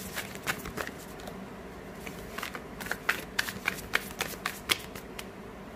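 A deck of tarot cards being shuffled by hand: a run of quick, crisp clicks as the cards slip and tap against each other, pausing briefly after the first second, then a denser flurry that stops about five seconds in.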